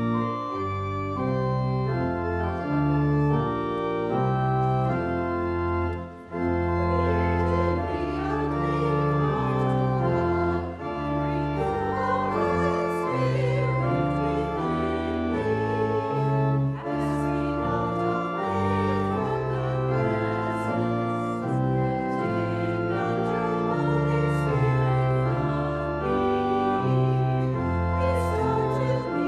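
Church pipe organ playing sustained chords over a bass line that steps from note to note. It starts abruptly and breaks off briefly about six seconds in.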